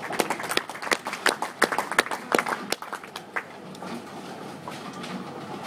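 A few people clapping in a bowling alley: sharp, irregular claps for about three seconds after the bowler's shot hits the pins. They fade into a low, steady rumble of the alley.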